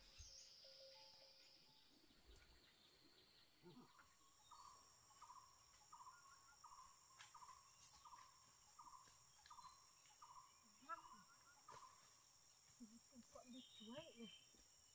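Faint, steady high-pitched trill of insects. From about four seconds in until about twelve, a short call repeats roughly every two-thirds of a second.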